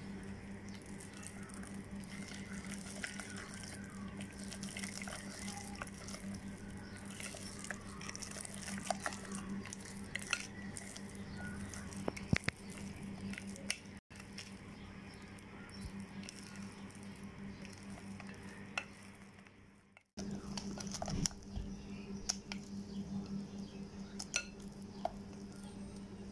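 A spatula stirring thick, wet oatmeal pancake batter in a glass bowl: uneven squishing and scraping with scattered light clicks against the glass. A steady low hum runs underneath, and the sound cuts out briefly twice.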